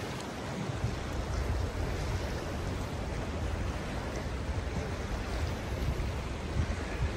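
Wind buffeting the microphone in a steady low rumble that picks up about a second in, over the wash of sea waves on the shore.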